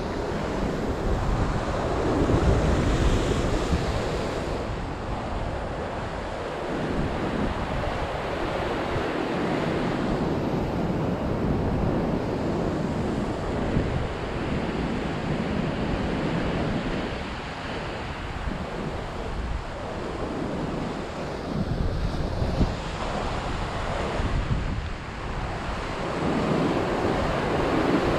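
Ocean surf surging and washing against a lava-rock ledge, swelling and easing every few seconds, with wind buffeting the microphone.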